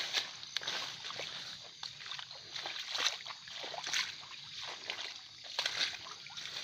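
Footsteps on wet grass, mud and fallen leaves, with uneven steps and rustles and a few soft squelches.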